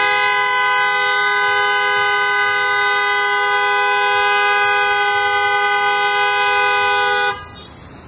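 Aftermarket Capslock copper-coil car horns on a Maruti Suzuki Ciaz held down in one long continuous blast, two steady notes sounding together, cutting off suddenly about seven seconds in.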